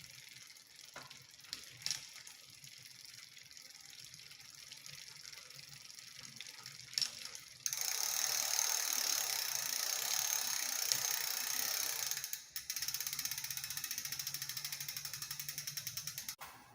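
Drivetrain of a 29er bike being run with a noisy rear derailleur. After a few faint clicks, a loud steady mechanical rattle starts suddenly and runs several seconds. After a brief break it turns into an even, rhythmic ticking that stops suddenly near the end.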